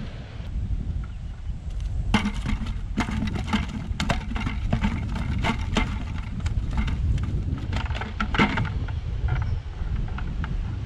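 Steady wind rumble on the microphone, with a run of irregular clicks and rustles from about two seconds in to near the end as a cast net and fish are handled over a plastic bucket.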